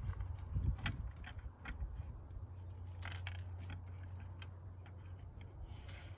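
Scattered light metallic clicks and clinks of small screws and hinge hardware being handled, over a steady low rumble.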